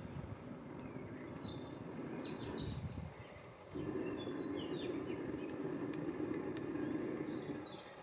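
Long, steady blows into the fire base of a Kelly Kettle wood-burning kettle to fan the kindling into flame. One blow runs for about three seconds, then a second, louder one starts a little under four seconds in after a short breath. Small birds chirp over it.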